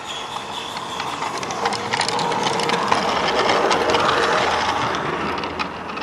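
Small-scale garden railway coaches rolling past close by: the wheels rumble and click sharply on the rails. The sound grows louder about the middle and eases off as the last coach goes by.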